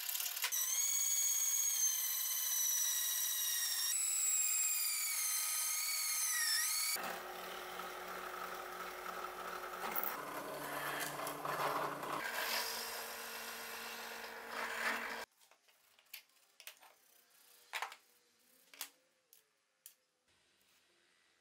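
Drill press boring holes through a metal piece: for the first several seconds the bit squeals high in the metal, its pitch wavering, then the motor runs with a lower steady hum under the cutting noise. In the last few seconds the drilling stops, leaving only quiet small clicks and taps of handling.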